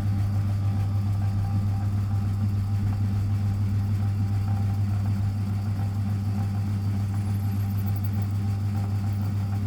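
Machine-tool motor running steadily with a low hum while a 2 mm solid carbide bit drills the screwdriver blade, steel too hard for an ordinary HSS bit.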